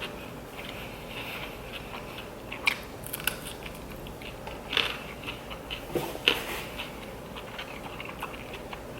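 Close-up eating sounds: chewing and biting into crunchy food, with a handful of sharp crunches spaced irregularly through the chewing.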